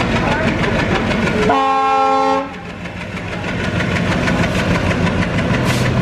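Train with LHB coaches running past close by, with a steady rumble and rapid clatter from the wheels. A locomotive horn sounds one short blast, about a second long, about one and a half seconds in.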